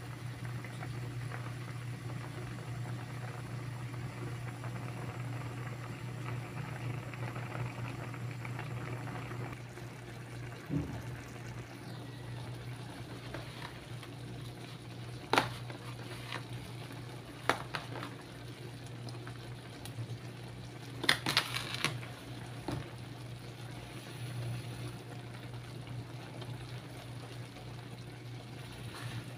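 Chicken adobo sauce bubbling in an aluminium wok, over a steady low hum. The bubbling gets a little quieter about a third of the way in, and a few sharp clicks come in the second half.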